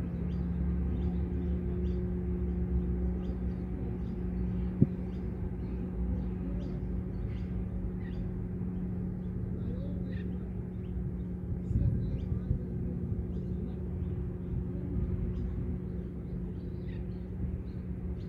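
Outdoor ambience: a steady low rumble and hum with scattered short bird chirps over it, a single sharp click about five seconds in and a brief low bump near twelve seconds.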